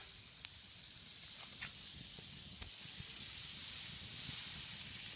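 Butter and garlic sizzling in a frying pan: a steady hiss, swelling a little about four seconds in, with a few faint pops.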